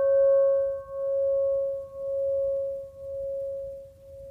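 A struck bell's ringing tone fading slowly, with a pulsing waver about once a second.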